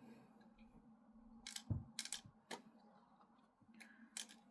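Faint, scattered sharp clicks, about half a dozen, of small steel BBs dropping and rattling as they are poured by hand into an air rifle's BB reservoir, a few spilling out.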